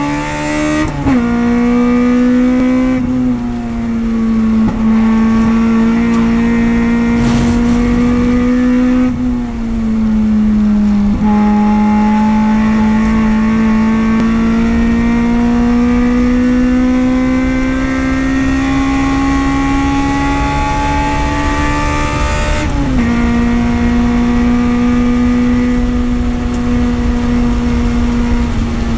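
Honda race car's engine heard from inside the cockpit, pulling hard at speed. Its pitch climbs slowly through each gear and drops sharply several times as the driver shifts up or lifts.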